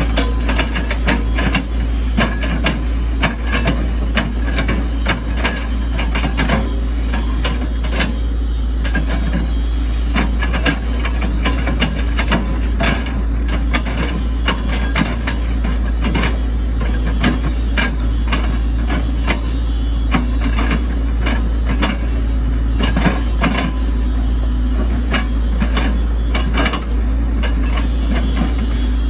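Hitachi ZX110 excavator's diesel engine running steadily under work, with frequent sharp knocks and cracks scattered throughout.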